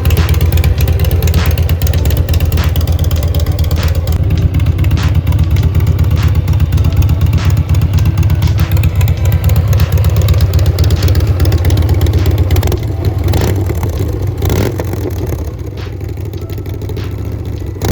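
Harley-Davidson Road Glide Ultra's V-twin engine running loudly through a 2-into-1 exhaust after a cam-chest rebuild meant to cure a bad engine noise. The running is steady, dipping a little in level for a few seconds near the end.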